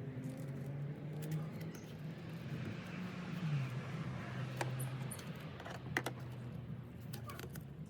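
Scattered light clicks and taps from hands working on a car door's speaker area and foam. Under them runs a steady low hum that shifts pitch a few seconds in.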